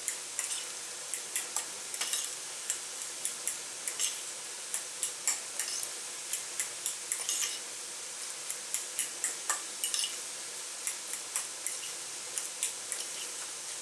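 A spoon clicking and scraping against a bowl as ketchup is stirred into boiled rice. Under it runs a steady sizzle of meat frying in oil.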